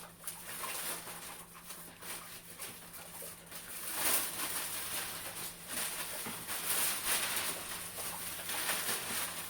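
Plastic sheeting crinkling and rustling in irregular bursts as it is handled, with a steady low hum underneath.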